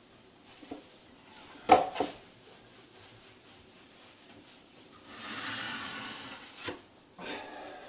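Drywall taping knife working joint compound: a sharp knock, then a long scrape of the blade about five seconds in and a shorter scrape near the end.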